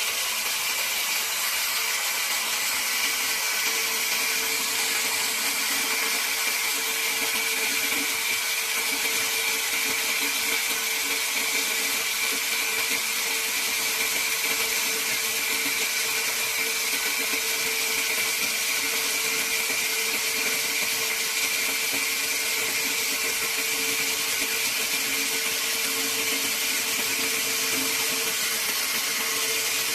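Electric chainsaw of a portable log sawmill running steadily, a constant motor whine over a noisy hiss.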